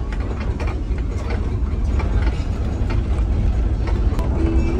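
Bus driving over a rough unpaved road, heard from inside the cabin: a steady low engine rumble with irregular rattling and clicking of loose fittings.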